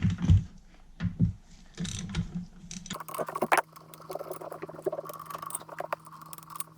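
Light knocks, then from about three seconds in a run of quick metallic clicks and scraping over a faint steady hum, as hand tools and metal parts are handled.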